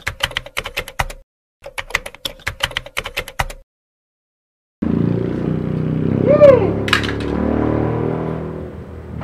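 Typewriter key-click sound effect: two runs of rapid clicks, about six a second, as the title is typed out, stopping a little over three seconds in. After about a second of silence, a louder, steady, low background sound starts, with a brief rising-and-falling whistle-like tone about six and a half seconds in.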